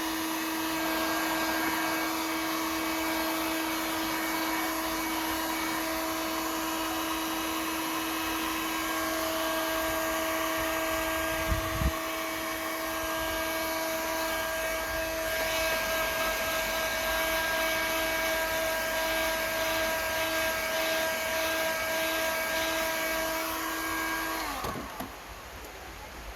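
Electric hot-air blower running steadily with a constant motor whine, heating a thin plastic sheet to soften it for moulding; it switches off near the end. A brief knock about halfway through.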